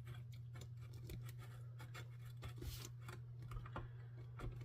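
Faint clicks and scratches of small hand tools working on a circuit board, over a steady low electrical hum. A brief scrape comes a little past the middle.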